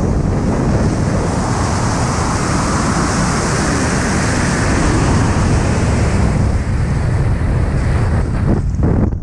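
Freefall wind rushing over the skydiver's camera microphone: a loud, steady, dense roar of wind noise. Near the end it breaks up and thins.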